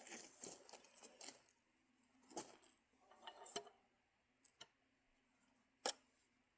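A few faint, sharp metallic clicks and light rattles, the loudest a little before the end, from the 8 bore pinfire rifle and its cartridge being handled after a round failed to fire.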